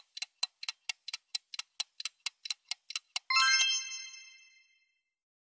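Clock-like ticking sound effect of a countdown timer, quick and even at about five ticks a second. About three seconds in it stops and a bright bell-like chime rings once and fades over about a second.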